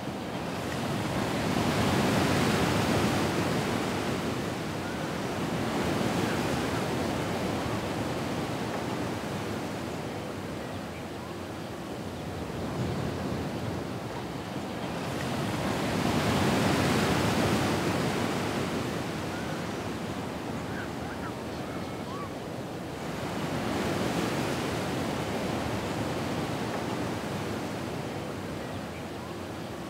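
Ocean surf: waves washing in and drawing back in slow swells, each rising and fading over several seconds, the biggest near the start and around the middle.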